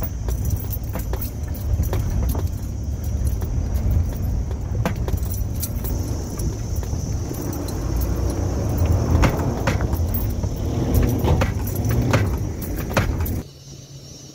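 Holden Jackaroo (Isuzu Trooper) 4x4 crawling over rocks in low range, heard from inside the cab: a low engine and drivetrain rumble with many sharp clicks, knocks and rattles as the body jolts over the rough ground. Near the end the sound drops suddenly to a much quieter, steady engine hum heard from outside the vehicle.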